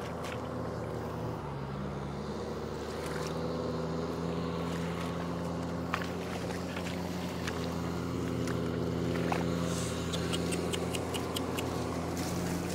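Tractor engine running steadily, dipping briefly in pitch about a second and a half in, as if under load. A run of short sharp clicks comes near the end.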